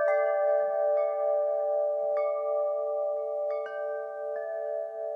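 Wind chimes ringing, struck about six times at irregular intervals. Each note rings on long, so several pitches overlap.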